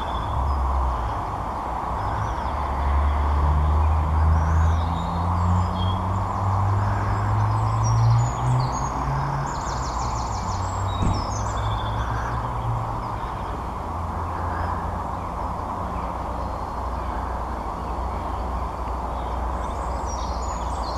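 Outdoor background: a steady hiss of distant noise with a low engine-like hum that rises slowly in pitch over the first half and fades away, and occasional short, high bird chirps.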